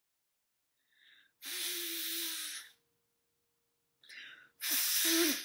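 A person blowing their nose hard into a handkerchief twice, each blow a second or so long with a honking pitch and preceded by a short quick intake of breath.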